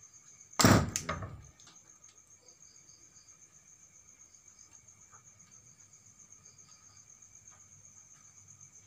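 Crickets trilling in a steady high drone, broken just over half a second in by one loud knock on wood with a short clattering tail.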